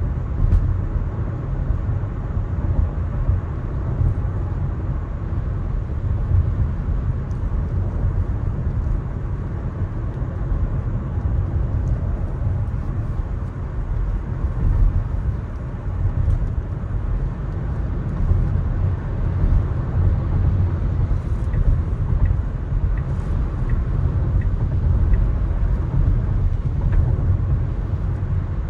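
Steady low road rumble of a car driving on rain-wet roads, tyre and road noise with no speech or music over it.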